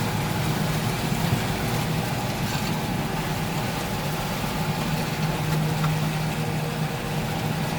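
Tractor engine running steadily while pulling a plough, a constant low hum.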